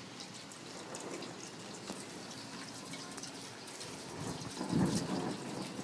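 Thunderstorm: steady rain with scattered drop ticks, and a low rumble of thunder swelling about four seconds in before easing off.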